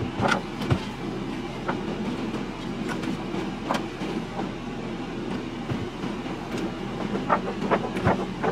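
Steady hum of a car idling with the air conditioning running, heard inside the cabin, with paper crinkling and rustling in the hands several times.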